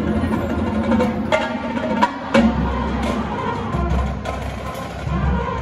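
Marching band playing its field show, with wind instruments over drums and front-ensemble percussion. Sharp percussion hits come about one and two seconds in, then a low bass part enters.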